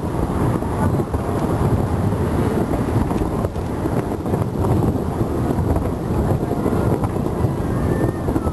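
Aerial fireworks shells bursting at a distance, their booms merging into a continuous rumble, with wind noise on the microphone.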